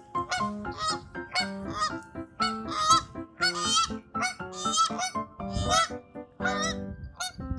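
Canada geese honking over and over, about two honks a second, over background music.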